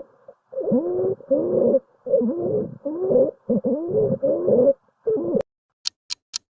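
Stridor heard through a stethoscope: a run of short, high-pitched, musical breath sounds whose pitch wavers and bends, a sign of a narrowed upper airway. They stop about five seconds in, and sharp clock-like ticks follow near the end, about four a second.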